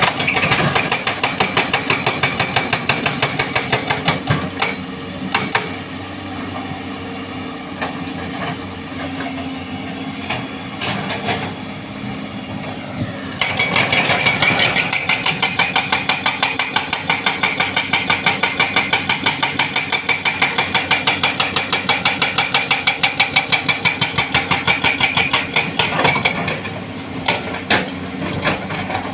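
Hydraulic breaker on a Doosan crawler excavator hammering hard rock in a fast, steady run of blows over the running diesel engine. The hammering stops for several seconds in the first half, leaving the engine running, then resumes and stops again near the end with a few last strokes.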